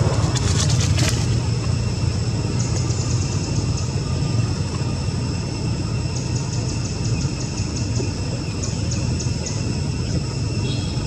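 Steady low outdoor rumble, like traffic or machinery in the distance, with a few crackling clicks in the first second. Short runs of rapid, high-pitched ticking chirps come and go every few seconds.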